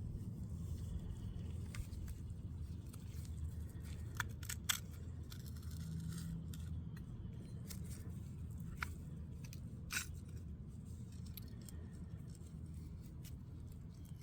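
Scattered sharp metal clicks and light scrapes of small window-mechanism parts (pins, spring, linkage) being handled, over a steady low hum.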